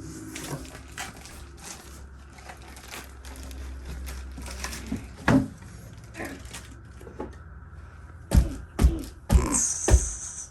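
Cardboard and packing material rustling and being handled, with scattered light clicks. In the last two seconds come four loud, sharp thuds as a child strikes packing material trying to pop it, and it does not pop.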